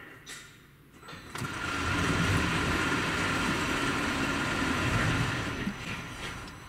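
Drive machinery of a mechanical multi-storey car park moving the car pallets. A click, then about a second and a half in the motor starts up with a steady whine. It runs for about four seconds and winds down near the end.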